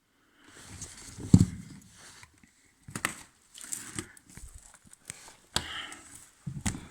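Irregular handling noises: scattered clicks and knocks with rustling in between, the loudest a single sharp knock about a second and a half in.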